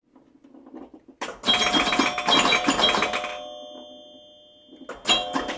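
A drum kit struck in a quick flurry of hits, its cymbals left ringing with steady metallic tones that fade slowly; a second burst of hits near the end sets the same tones ringing again.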